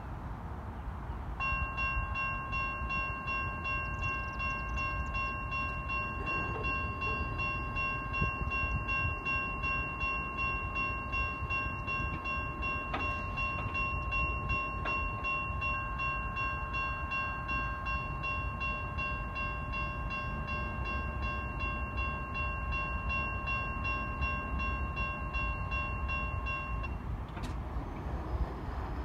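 Railroad crossing warning bell ringing with rapid, even strokes as the crossing signals activate. It starts a second or two in and stops shortly before the end.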